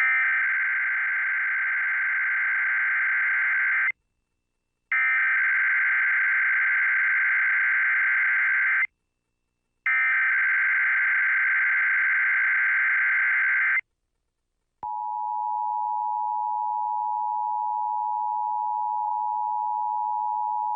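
Emergency Alert System SAME header: three bursts of digital data tones, each about four seconds long with a second of silence between them. About a second after the third burst, the steady two-tone EAS attention signal begins and holds.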